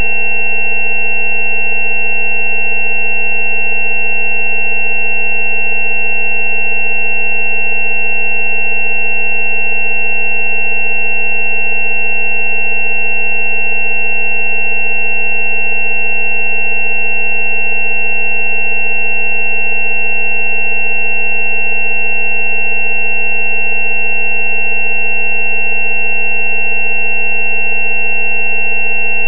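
Synthesized sine tones held steady without change: a low tone at the 190 Hz 'healing frequency' for dental abscesses, layered with several higher steady tones, the highest-pitched of which is the loudest.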